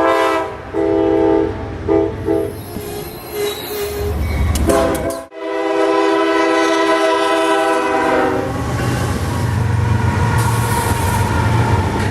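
An Amtrak GE P42DC locomotive's multi-chime air horn is played as a horn show: a run of short blasts in a rhythm, then one long blast. After the long blast comes the low rumble of the passing train.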